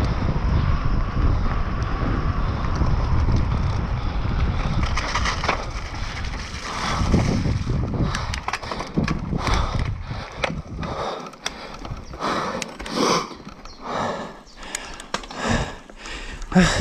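Mountain bike descending a dirt trail at speed: wind rushing over the camera microphone with tyre rumble, then from about eight seconds in a run of sharp, irregular clatters and knocks as the bike rattles over rocky, loose ground.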